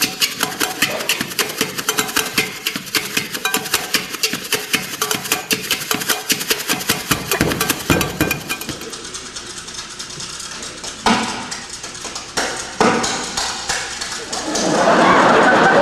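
Rhythmic stage percussion played on plastic bags: fast, sharp snapping and crinkling hits that thin out to a few single hits about two-thirds of the way through. Near the end, loud audience applause comes in.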